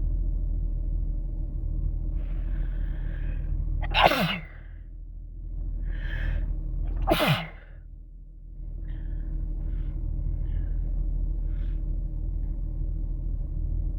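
A person sneezing twice, about four and seven seconds in, each sneeze preceded by a drawn-in breath and ending in a voiced cry that falls in pitch. Short breaths and sniffs follow, all over a steady low hum.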